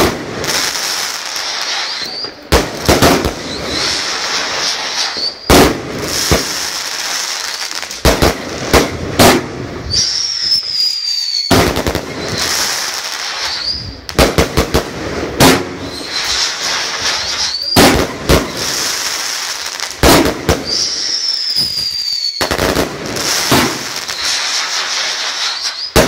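Fireworks going off overhead: sharp bangs every second or two with dense crackling between them, and several high whistles that slide in pitch, most of them falling.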